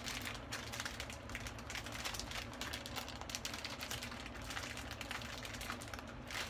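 Plastic instant-ramen packet crinkling and crackling in the hands as it is worked open, a dense run of small crackles.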